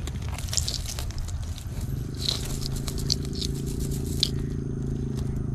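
Close scraping and crackling handling noises with sharp clicks, joined about two seconds in by a steady engine hum that keeps going.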